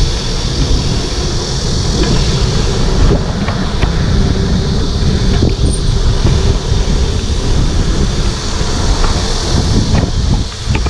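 Wind rushing over the microphone of a handlebar-mounted camera on a moving bicycle, a steady rumble with a higher hiss of tyres on the road.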